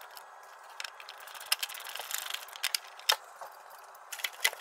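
Scattered small plastic clicks and rattles as hands undo the little black plastic nuts holding the NOx sensor module and its wiring harness to the car's underbody, with the sharpest click about three seconds in.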